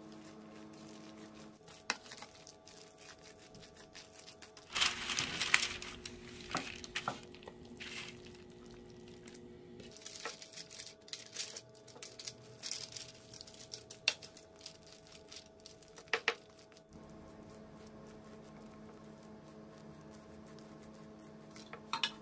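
Wooden spatula working a thick, wet batter of shrimp, imitation crab and chives: wet squishing, scrapes and paper crinkles as it is stirred in the bowl and spread on a parchment-lined tray, loudest about five seconds in. Soft background music with long held notes runs underneath.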